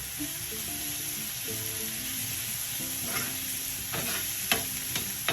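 Chopped vegetables sizzling steadily in a frying pan while being stirred. A utensil knocks against the pan several times in the second half.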